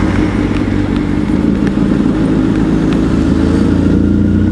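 Honda CBR1000RR inline-four engine running at a steady cruising speed, heard from the rider's helmet over a constant rush of wind and road noise on wet asphalt.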